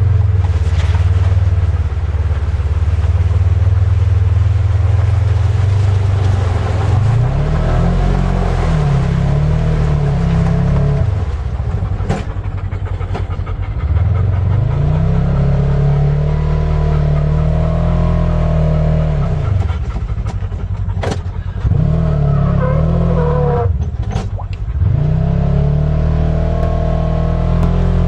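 Side-by-side UTV engine running hard, then revved up and down in repeated surges of a few seconds each while the machine is bogged in deep water and mud. A few sharp knocks come in between. The driver thinks the drive belt is wet.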